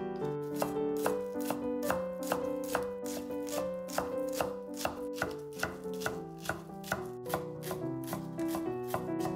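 Kitchen knife chopping on a cutting board in even strokes, about two cuts a second, over soft background music.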